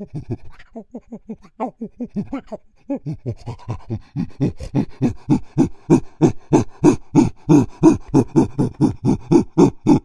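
Chimpanzee pant-hooting: a rhythmic series of breathy panted calls, building from about three seconds in to louder, quicker pants at about four or five a second, then cutting off abruptly at the end.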